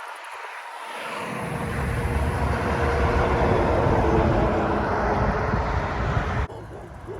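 A semi truck driving past: engine and tyre noise swell over a couple of seconds, hold, then cut off suddenly near the end.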